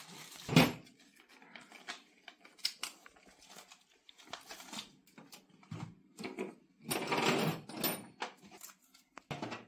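Plastic packaging rustling and crinkling as a new chainsaw is unpacked, with irregular clicks and knocks of parts set down on a table; a sharp thump about half a second in and a longer rustle near the end.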